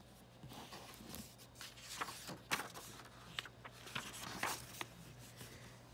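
Pages of a hardcover picture book being turned by hand: faint, scattered paper rustles with a few soft taps.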